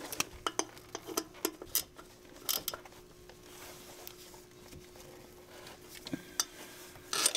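Irregular metallic clicks and clinks of a 12 mm socket wrench being worked on the dipstick tube bolt. They come thickest in the first few seconds, with a sharper click near the end, over a faint steady hum.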